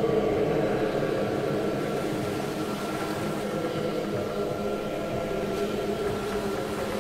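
Dark ambient horror drone: a steady, dense hum with several held tones layered over a hiss.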